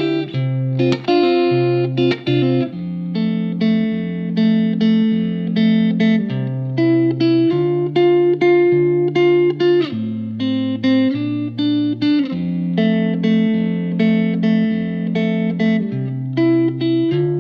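Background music led by guitar, with chords changing every second or two.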